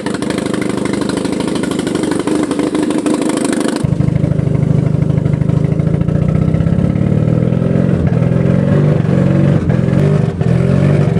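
A vehicle engine running, then, after an abrupt cut about four seconds in, the Hyundai Coupé's engine running steadily as heard from inside the cabin, just brought to life by a tow start with deep-fryer fat in the crankcase in place of engine oil.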